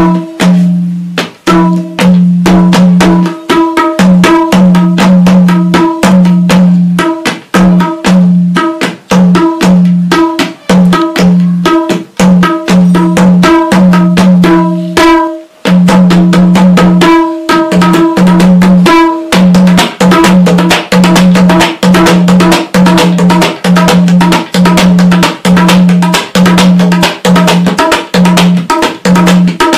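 A madal, the Nepali two-headed hand drum, played by hand in a fast rhythm. Each stroke rings with a deep, held pitch. The playing pauses briefly about halfway through, and the strokes come thicker and faster in the second half.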